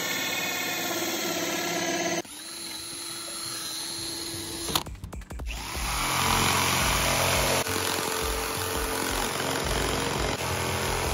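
A cordless drill spinning a hole saw through a fiberglass deck cover, then, after a brief break with a few clicks about five seconds in, a Ryobi jigsaw sawing steadily through the fiberglass along the cut line.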